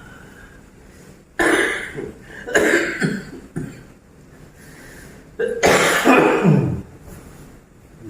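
A person with a cold coughing several times in sharp bursts; the longest and loudest cough comes about two-thirds of the way in.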